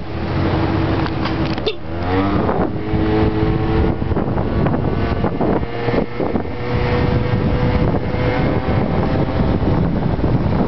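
Motor scooter engine running while riding, with wind rushing over the microphone. The engine note shifts about two seconds in, then climbs slowly over the next few seconds.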